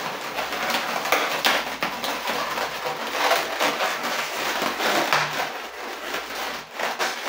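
Inflated 260 latex twisting balloons squeaking and rubbing against each other as they are pinched and twisted into a flower, an irregular run of squeaks and scrapes.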